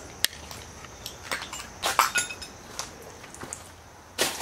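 Footsteps crunching and clinking over scattered debris and broken glass: irregular sharp cracks and crunches, the loudest cluster about two seconds in and another near the end.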